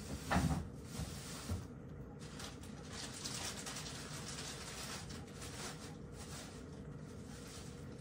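A cat eating wet food from a bowl: faint, soft licking and chewing sounds, with a dull knock about half a second in.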